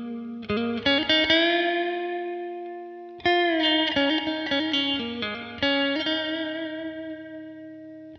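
Background music: electric guitar chords with effects, struck every second or few and left to ring out and fade.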